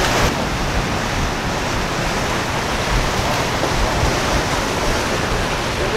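Steady rushing of water as a powerboat's hull throws spray and wake through choppy inlet water.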